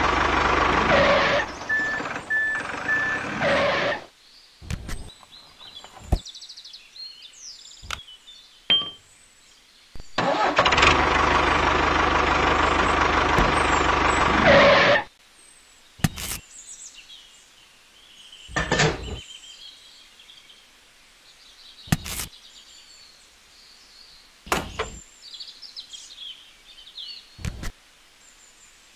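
A tractor engine sound for a toy model tractor runs for about four seconds, stops, and runs again for about four seconds from about ten seconds in. In the gaps, sharp clicks and knocks of small metal parts being handled, with faint high chirps.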